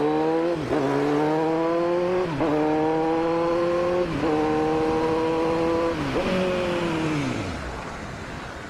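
Kawasaki Z900's inline-four engine accelerating hard through the gears: the note climbs, drops at each of three quick upshifts about two seconds apart, and climbs again. About six seconds in the throttle closes and the note falls away and fades as the bike slows.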